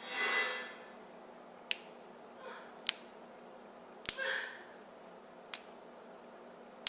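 Fresh yardlong beans snapped into short pieces by hand: five sharp snaps, a little over a second apart.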